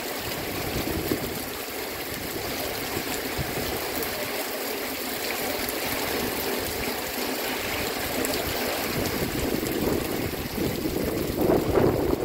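Heavy storm rain falling steadily, a continuous rushing hiss, with a louder gusty rush near the end.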